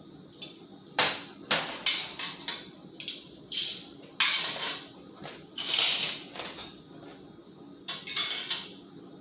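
Utensils clattering and scraping against a pot or pan, about a dozen short scrapes and knocks, some drawn out to half a second, with short pauses between them.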